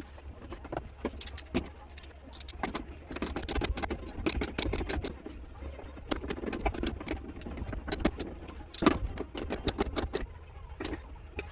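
Irregular metallic clicks and rattles: a bolt, a weld nut and a flat bar knocking against each other and the body panel inside a Toyota 4Runner's C pillar as the bolt is worked into the nut.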